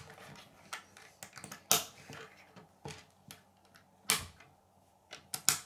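K'nex plastic rods and connectors clicking as they are handled and snapped together: a handful of sharp clicks, the loudest about two, four and five and a half seconds in.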